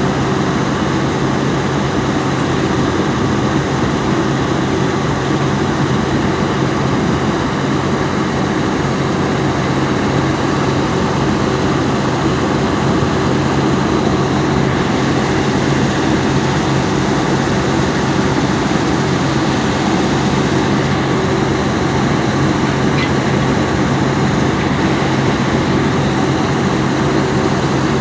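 Heavy diesel engine of a Volvo EC210B excavator running at a steady speed, a continuous even drone with no rise or fall in revs.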